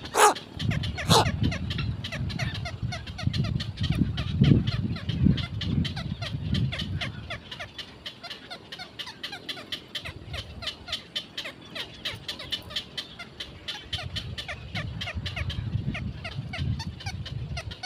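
Birds giving a rapid, continuous ticking chatter, with a few louder calls right at the start. Bouts of low rumble come and go under it.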